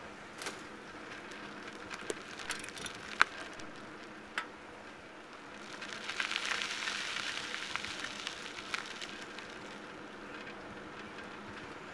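Riding noise of a bicycle rolling along a paved road: scattered rattles and clicks from the bike and camera mount. About six seconds in, a crackly hiss of tyre and rushing noise swells and then fades by about nine seconds.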